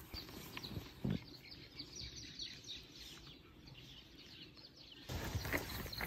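Small birds chirping in many quick, high, falling calls, over soft thumps and crunches of footsteps in snow. About five seconds in, louder rustling and thumps abruptly take over.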